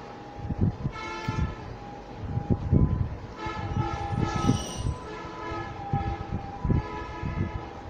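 A horn sounding a chord of several steady tones: a short blast about a second in, then longer blasts from about three and a half seconds in, over irregular low rumbling.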